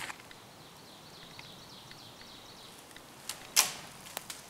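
Faint high chirping over quiet woodland air, then a single sharp knock about three and a half seconds in, with a couple of lighter clicks just before and after it.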